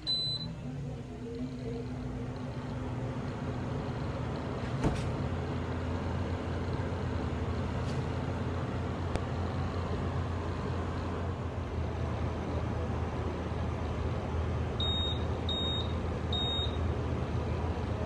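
Window-type air conditioner beeps once as it takes a command from a universal remote, then starts up and runs with a steady low hum that builds over the first couple of seconds. There is a single click about five seconds in, and three short beeps from the unit near the end as more remote commands are received.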